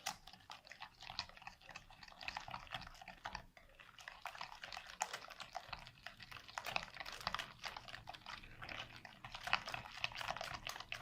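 Egg, sugar and yogurt batter being beaten by hand in a bowl: a quick, uneven run of wet clicks and scrapes from the utensil against the bowl and through the liquid.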